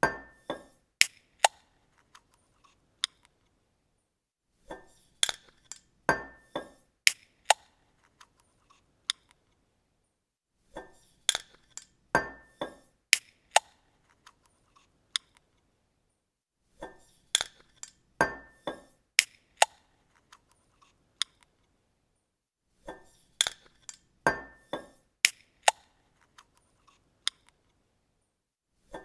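A bottle cap being opened on a glass bottle: a quick run of sharp metallic clicks and glassy clinks with a brief ring. The same short sequence repeats about every six seconds, five times.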